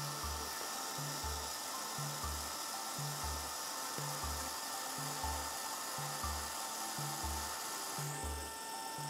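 Liene Pearl K100 pocket photo printer running its paper feed for a print, a steady hissing mechanical noise with faint steady tones that starts suddenly and thins about eight seconds in. Background music with a steady beat plays underneath.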